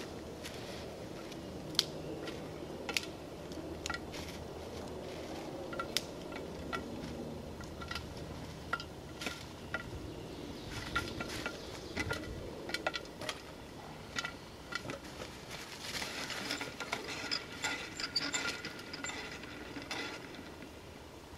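Old-fashioned hand-cranked popcorn popper being turned, its crank and stirring gear clicking and rattling at about one click a second. The clatter grows busier near the end.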